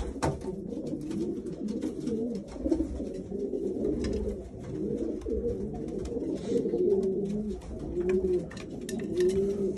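Several racing pigeons cooing, their low rolling coos overlapping one another, with a few sharp taps among them.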